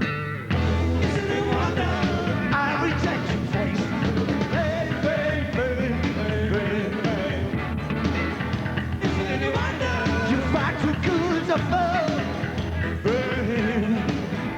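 Rock song with a steady beat and a sung melody line over the band.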